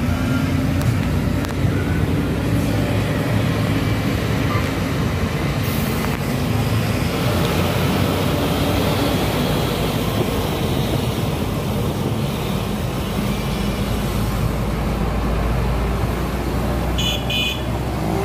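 Moving bus: the engine runs steadily under loud rushing wind and road noise, heard through an open side window of the passenger cabin.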